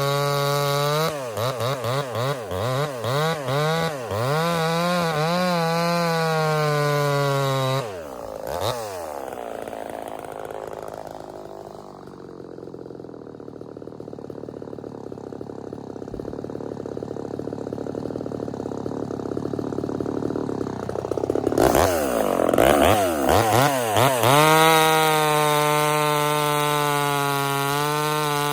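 Ported Homelite VI-130 two-stroke chainsaw running at high revs with the throttle blipped rapidly up and down. A few seconds in it drops to a lower, quieter, duller running for about twelve seconds. It is then blipped again and held steady at high revs.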